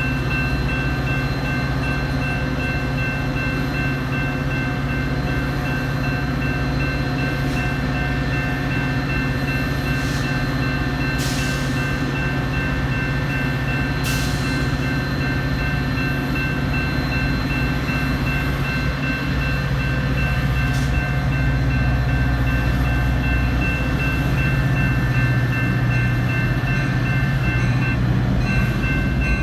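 Freight train running by, with a steady deep rumble and a steady high whine. It grows a little louder in the last several seconds.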